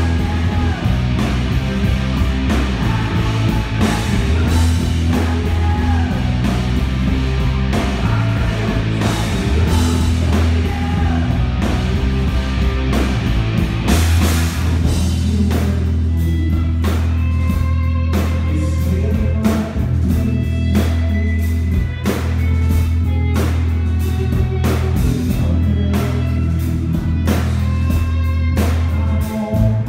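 Live heavy metal band playing loud, with electric guitars, bass and a drum kit keeping a steady beat, heard from the stage. About halfway through, the playing thins out to a held bass note with sparser guitar over the drums.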